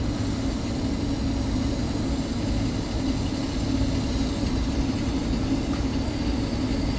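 Steady drone of rooftop air-conditioning equipment running, a continuous low mechanical hum with a fine hiss over it.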